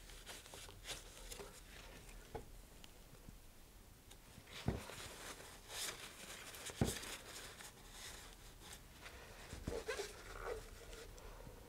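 Faint rustling of a paper towel and gloved hands handling a fiberglass rocket body while wiping epoxy, with a few brief knocks about five and seven seconds in and again near the end.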